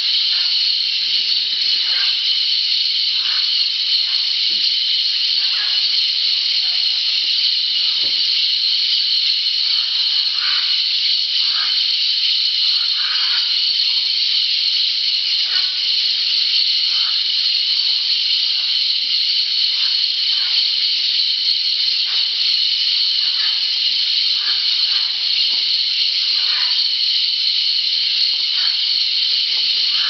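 Steady, high-pitched rainforest insect drone with the short, scattered calls of parrots gathered at a clay lick, coming every second or so at irregular intervals.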